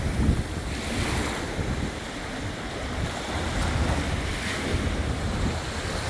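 Small sea waves washing and lapping onto the sand at the water's edge, with wind buffeting the microphone in gusts.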